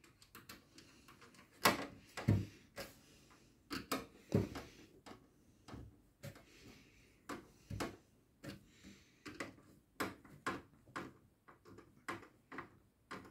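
Irregular light clicks and knocks of a hand screwdriver and screws against a metal PC case panel as the screws holding a 240 mm radiator are driven in, with some sharper knocks among them.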